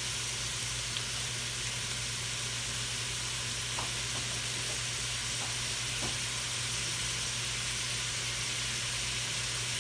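Ground beef frying with onions and green bell peppers in an enamelled cast-iron pot: a steady sizzling hiss, with a low steady hum underneath.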